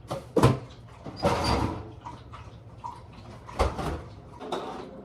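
Kitchen handling sounds: a few sharp knocks and clatters of cups and containers, with a longer rattling rush about a second in, as iced drinks are being made.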